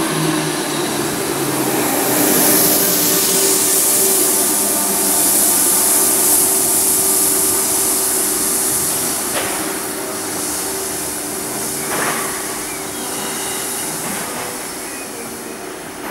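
A Z2N double-deck electric train running away along the track, with a steady electric whine and rolling hiss that slowly fade as it recedes. Two sharp clicks come about halfway through.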